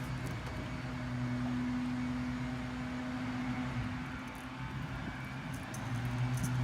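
A steady low motor hum with two held tones; the lower tone fades about four seconds in and comes back strongly near the end.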